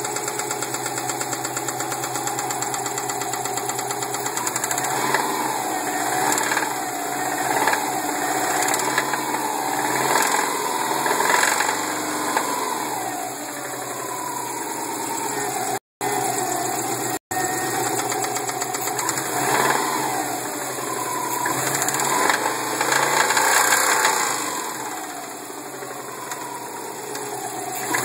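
2002 Subaru WRX's turbocharged flat-four engine running and being revved up and down several times, knocking from a spun bearing.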